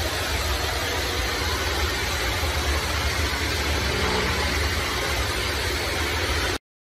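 A pressure washer spraying a concrete floor: the steady hiss of the high-pressure jet over the low, even drone of the machine's engine. It cuts off abruptly near the end.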